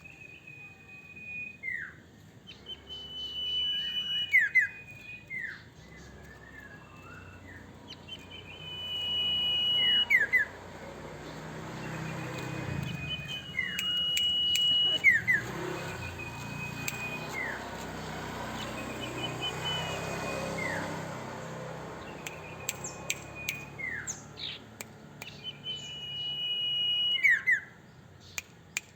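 Common iora (cipoh) singing vigorously. It repeats a long, level, high whistle that ends in a quick downward slur, every couple of seconds. Sharp clicks come in between, most of them near the end.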